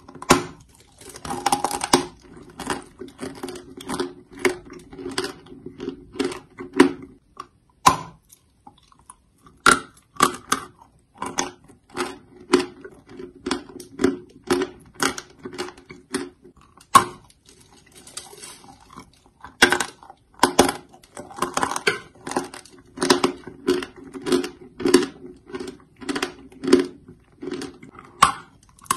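A block of dry white chalk bitten and chewed, giving repeated loud crunches about two a second, with two short lulls about a third and two-thirds of the way through.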